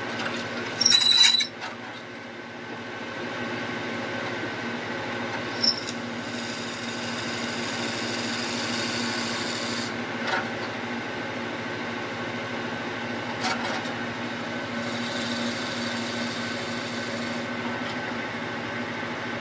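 Wood lathe running steadily while a long boring auger is fed through its hollow tailstock into a spinning fir handle, the cutting heard as a hiss in two spells, the first about six seconds in. Just before the lathe settles into its hum, about a second in, there is a short metallic clatter.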